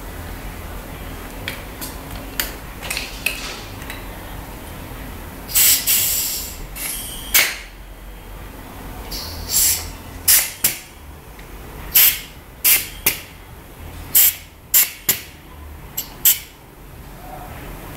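Workshop tool noises during shock-absorber work: a string of about a dozen short, sharp clicks and hissing bursts, with a longer hiss about six seconds in, over a low steady hum.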